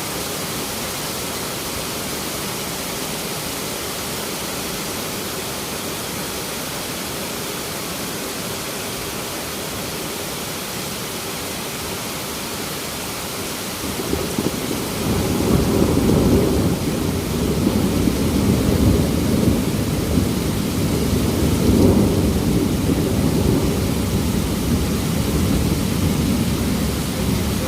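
Heavy rain pouring in a steady hiss. About halfway through, a long low rumble of thunder sets in and rolls on, swelling and fading.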